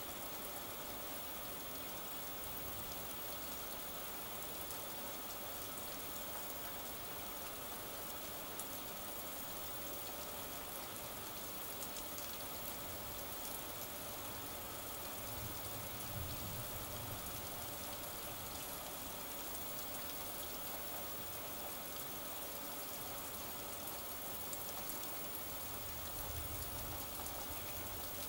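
Steady rain falling, an even hiss of drops. Two soft low rumbles swell up, one around the middle and one near the end.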